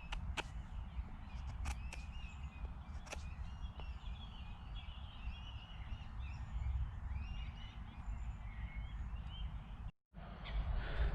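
Songbirds chirping and singing in short repeated phrases, over a steady low rumble, with a few sharp clicks in the first three seconds.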